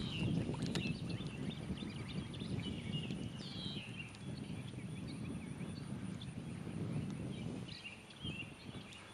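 Wind buffeting the microphone as a steady low rumble, with birds chirping in short, scattered calls.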